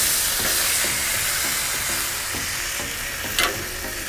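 A ribeye steak sizzling on a hot Blackstone griddle's steel cooktop just after being flipped. The steady hiss is loudest at the start and eases off a little, and there is one sharp click about three and a half seconds in.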